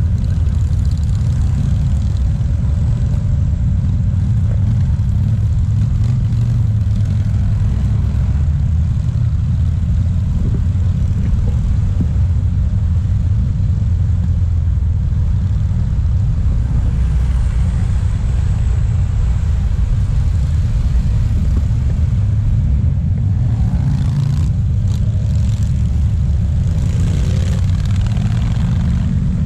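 Steady low rumble of a long stream of motorcycles riding past, mixed with passing car traffic, with no break.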